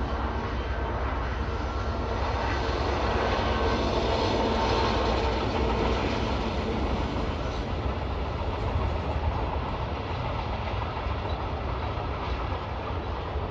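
Diesel-hauled freight train passing, a steady rumble of wagons rolling over the rails. It is loudest about five seconds in and eases slightly toward the end.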